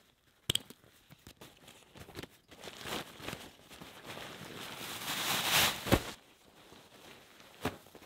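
Hands handling something: a sharp knock, then a rustling, tearing noise that builds for a few seconds and ends in a sharp click about six seconds in, and another knock near the end.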